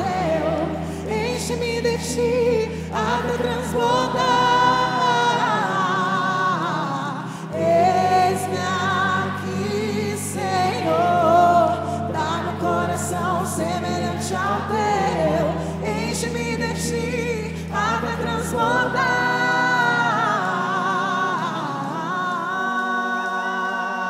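Slow worship song sung live by a band, the singing carried over held low chords that change every few seconds, with light cymbal ticks at the start.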